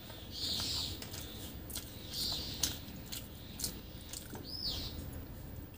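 Close-up mouth sounds of eating rice and fish curry by hand: wet chewing and several sharp lip-smacking clicks. A few high bird chirps sound through it, the clearest a short rising-and-falling chirp about four and a half seconds in.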